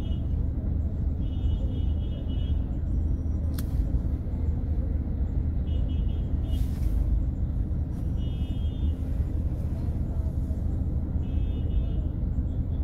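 Steady low rumble of a vehicle driving on a city road, with short high-pitched beeps from traffic sounding several times.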